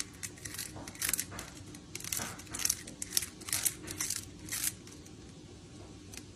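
Cat gnawing on a wicker basket handle: a run of short, dry crunches and creaks from the woven wicker, two or three a second, stopping about three-quarters of the way through.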